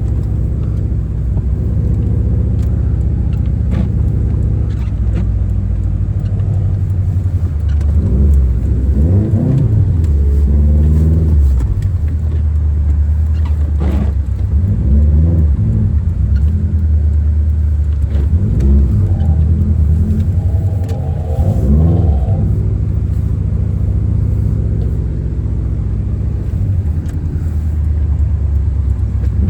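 Subaru WRX's turbocharged flat-four engine running while driving, its pitch rising and falling several times through the middle of the stretch as the car speeds up and eases off.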